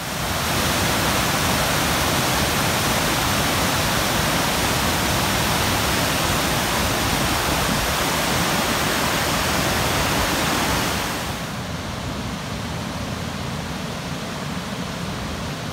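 Steady loud rush of river water pouring over a low dam spillway and churning white below it. About eleven seconds in it becomes a little quieter and duller.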